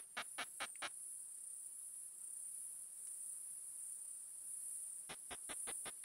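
Ultrasonic song of a male Tettigoniopsis ehimensis katydid, made audible by a bat detector: a regular train of clicks about five a second over a steady high hiss. The clicks break off about a second in and start again near the end.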